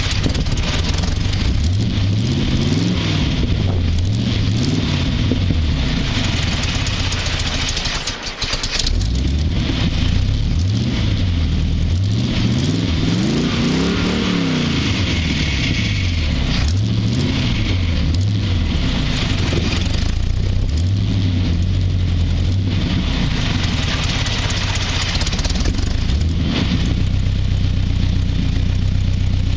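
Hot rod engine running on its first start after sitting all winter, revved up and down several times, with a brief dip about eight seconds in, then settling to a steadier idle.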